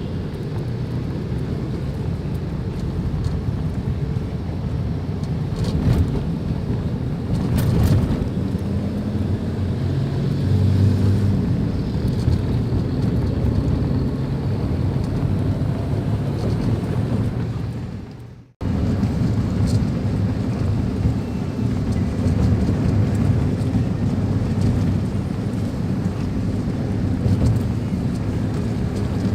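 Steady engine and road noise inside a moving car, a low rumble. It drops out for a moment a little past halfway and then carries on.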